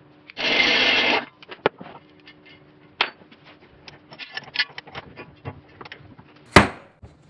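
Pneumatic impact wrench running for about a second, spinning the axle nut off a front steering knuckle's CV axle. Light clicks and clinks of metal parts being handled follow, then one sharp knock near the end.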